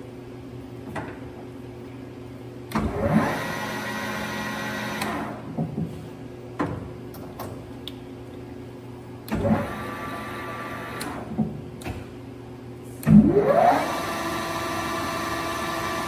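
Spindle of a Southwestern Industries TRAK TRL CNC lathe started and stopped three times by its apron lever. Each start opens with a clunk and a rising whine as the chuck spins up, then holds a steady whine before it stops; the second run is short and the third the loudest, with small lever clicks between runs.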